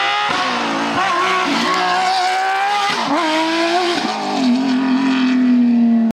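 Porsche 911 rally car's flat-six engine at racing speed. The note breaks and jumps several times as it changes gear and lifts off into a hairpin, then it holds a long, hard-revving pull out of the corner. The sound cuts off suddenly at the very end.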